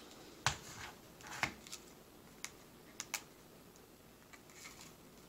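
Handling sounds of plastic iron-on covering film: soft crinkling with several sharp clicks and taps as the film is pressed and folded around a balsa model elevator. The loudest clicks come about half a second and a second and a half in.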